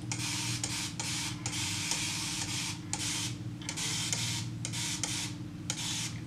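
Handheld plastic spray bottle misting hair, a quick run of hissing sprays with short pauses between them, over a steady low hum.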